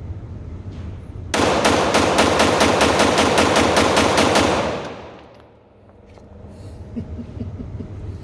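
A semi-automatic gun fired in a fast, steady string of shots, about six a second, for some three seconds.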